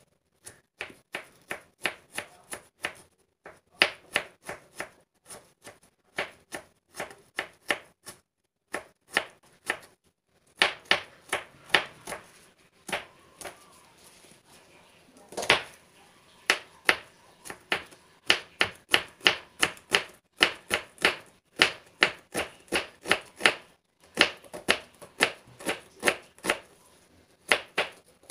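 Kitchen knife slicing an onion on a plastic cutting board: quick, even knocks of the blade striking the board, about four a second, in runs broken by a couple of short pauses.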